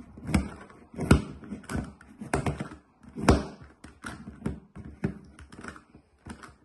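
GAN Megaminx plastic puzzle being turned one-handed against a wooden tabletop: irregular clicking and clacking of the faces as they turn, with a few louder knocks in the first half.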